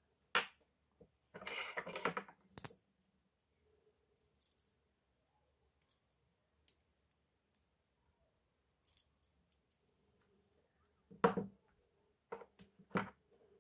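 Small clicks and taps of hand tools and phone parts being handled during a screen repair. A short scraping rustle comes about a second and a half in, and a few sharper clicks come near the end.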